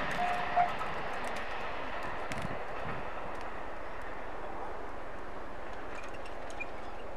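Steady running noise of a JR Central 373 series electric limited-express train moving away, fading slowly. A level-crossing bell's repeated ringing stops about half a second in.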